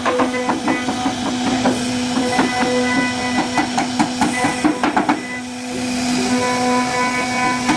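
CNC router spindle running with a steady whine while the cutter works the wood, with rapid ticking of the cut. The whine drops away about five seconds in and picks up again a second later.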